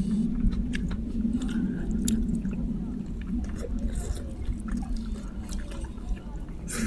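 Close-up chewing, with scattered wet mouth clicks and smacks, of spicy chicken and rice eaten by hand, over a steady low hum.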